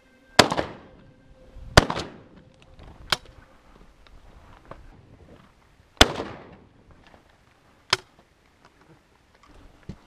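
Shotgun shots fired at ptarmigan: five sharp reports over about eight seconds. Three are loud, each trailing off in a short ringing tail; two are sharper and weaker.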